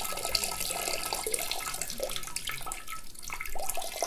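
A person peeing, the stream of urine splashing steadily.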